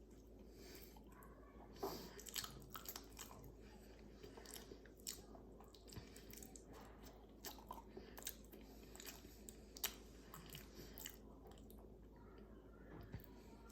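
A person biting and chewing a banana close to the microphone: a run of short, wet mouth clicks and smacks starting about two seconds in and thinning out near the end.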